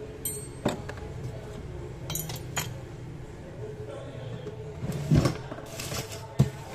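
Light clicks and clinks of small hand tools and a hard plastic phone housing being handled and set down on a rubber workbench mat, with two louder knocks about five and six and a half seconds in.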